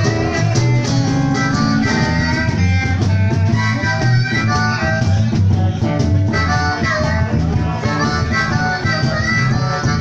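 Blues harmonica wailing held and bending notes over electric guitar, bass guitar and a cajon beat, in a live band jam.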